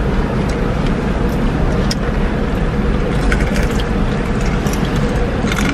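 Steady low rumble of a car's interior, with faint scattered clicks and rustles.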